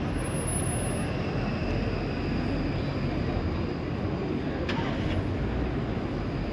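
City street traffic: a steady low rumble as a large SUV passes close and an electric tram approaches on its rails, with a faint high whine that climbs near the end. A single sharp click comes about four and a half seconds in.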